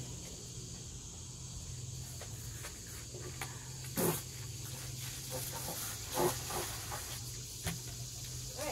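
Steady high-pitched drone of summer insects, with a low hum under it. Over it come a few knocks and clatters from a plastic bucket and garden hose being handled; the loudest is a sharp knock about four seconds in.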